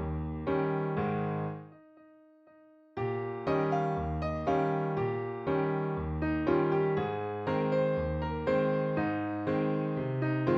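Background music: electric piano playing a steady run of chords, dropping to one faint held note about two seconds in before the chords start again a second later.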